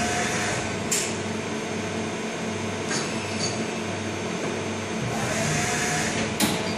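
CNC machine running a program: a steady machine noise with short motor whines that rise and fall as the axes move the tool along its path. A few sharp clicks, the loudest near the end.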